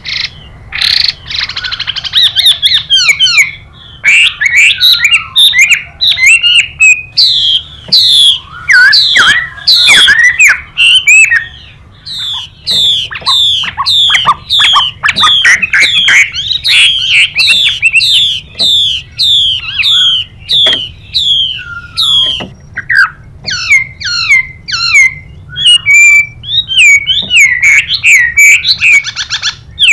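Chinese hwamei singing loud, fast runs of whistled notes that slide downward, several a second. Near the start and again near the end come harsh hissing calls, the 'xùy' call of a female hwamei.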